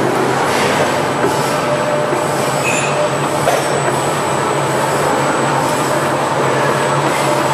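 Automatic dough-sheeting and pastry production line running: electric motors, rollers and conveyor belts making a steady mechanical hum with a thin, constant high whine.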